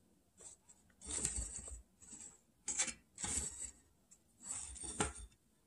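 Yarn and crocheted fabric rustling and rubbing as double crochet stitches are worked with a hook, in several short bursts about a second apart.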